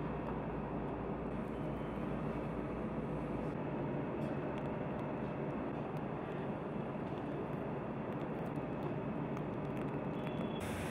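Steady industrial machinery rumble with a hiss over it and a faint hum; the deepest part of the hum drops out about three and a half seconds in.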